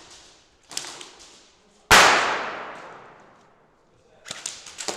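A single sharp, very loud bang about two seconds in, echoing away over roughly two seconds through the indoor airsoft arena, with a few faint clicks before and after it.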